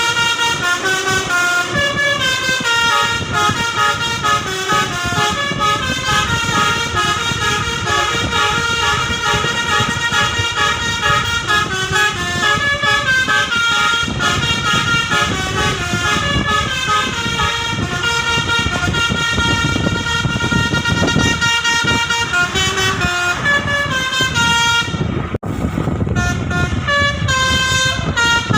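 Indonesian bus 'telolet' horns (basuri multi-tone air horns) playing melodies, the notes stepping up and down one after another, over the rumble of the bus engines.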